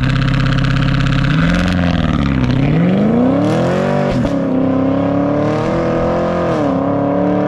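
Chevrolet Camaro SS 6.2-litre V8 through a Corsa Extreme cat-back exhaust, launching hard: the revs are held steady for a moment, then it accelerates away. The automatic makes two upshifts, about four and about seven seconds in.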